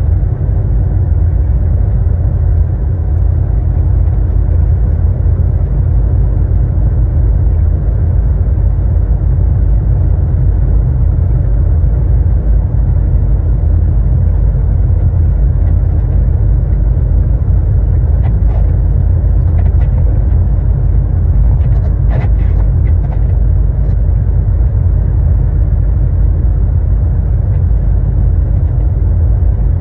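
Steady low rumble of a truck's engine and road noise heard from inside the cab while cruising at highway speed.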